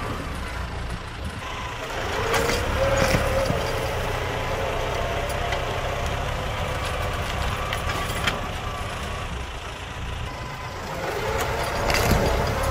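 Tractor engine running steadily with a wavering whine, and a few short knocks.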